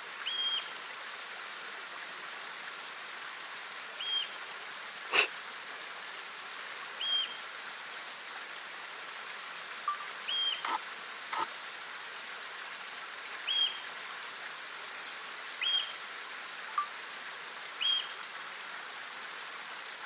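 Marmot giving its alarm call: a short, high, piercing whistle, repeated seven times about every two to three seconds, a warning to the colony of possible danger. Under it is a steady rushing hiss, with a sharp click about five seconds in and two more near the middle.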